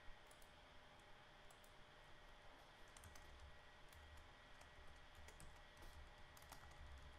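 Near silence, with faint scattered clicks of a computer mouse and keyboard typing over a low hum.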